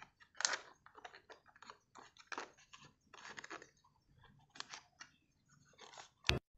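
Faint, irregular clicks and scrapes of black plastic toy wheels being pushed onto a thin axle through a toy dump truck's plastic chassis, with the clearest click about half a second in and another just before the end.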